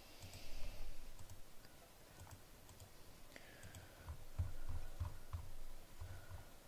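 Scattered faint clicks of a computer mouse as a document is opened and paged through, with soft low thumps in between.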